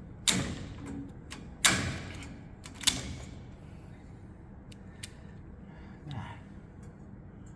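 Sharp metallic clacks from a Constantina hand pop rivet gun being worked: three loud ones in the first three seconds, each with a short ring, then a few faint ticks.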